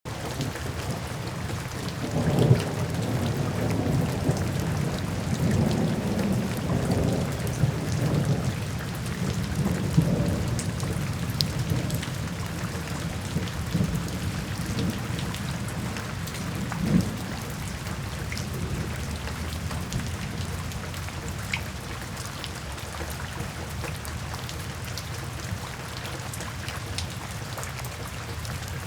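Steady rain falling on a window, with scattered drops ticking on the glass. Light thunder rumbles low through the first ten seconds or so, and there is a single low thump about two-thirds of the way through.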